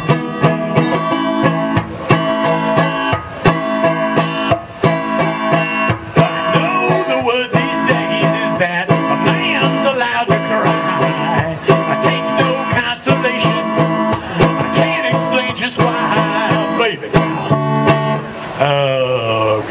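Live country band playing an instrumental break, with a banjo picking quick plucked notes over the other instruments.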